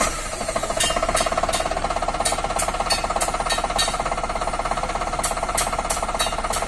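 Tata Magic Express common-rail diesel engine starting and idling steadily with a fast, even knock, with irregular sharp ticks over it. It is being run with the radiator cap off to check for coolant pressurising or bubbling from a failed head gasket.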